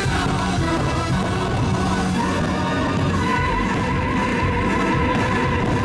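Orchestral fireworks-show soundtrack music playing loudly and without a break, with a wavering held high note coming in about two seconds in.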